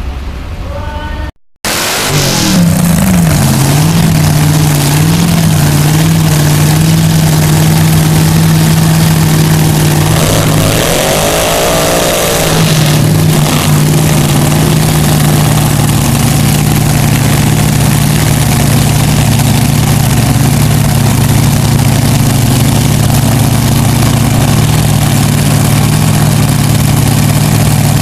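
Methanol-burning top alcohol dragster engine firing up about two seconds in, its pitch dipping and rising briefly before it settles into a loud, steady idle.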